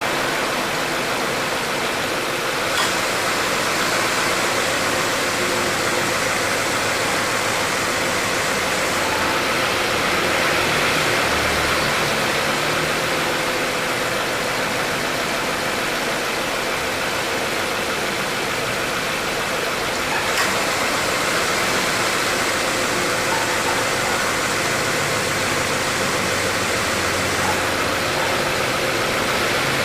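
2018 Subaru Impreza 1.6's flat-four engine idling with the air conditioning on: a steady engine-bay hiss with two faint clicks, one about 3 s in and one about 20 s in. The AC compressor runs without abnormal noise after repair.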